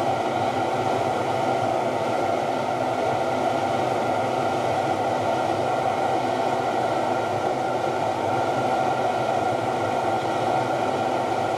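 Steady roar of the burner heating a pot of molten zinc as it is brought up to pouring temperature for a spelter socket.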